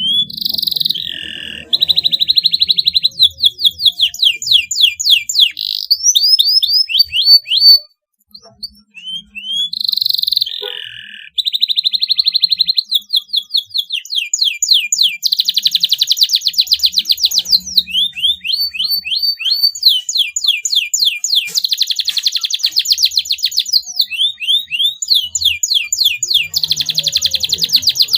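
Domestic canary singing a long song of fast, high trills and rapidly repeated notes. It breaks off for about a second some eight seconds in, then carries on.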